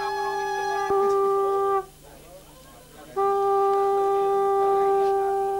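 Conch shell (shankha) blown in long, steady, unwavering notes, as in Hindu wedding rites. One note ends a little under two seconds in, and after a pause of about a second and a half a second note at the same pitch begins and holds.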